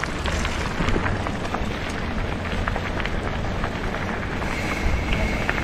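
Wind rushing over the microphone of a camera riding along on a bicycle, with tyres rolling on a desert dirt track and scattered small ticks. A faint high thin tone comes in near the end.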